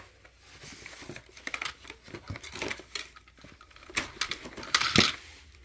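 Hard plastic toy pieces being handled: irregular small clicks and taps, with one sharper clack about five seconds in.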